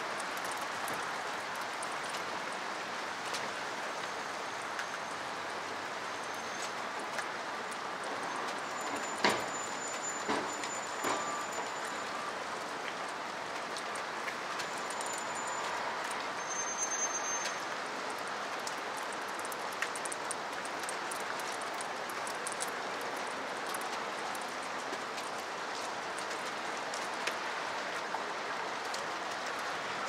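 Steady rain with scattered drip taps, one sharper tap about nine seconds in. A few brief high bird chirps come through now and then.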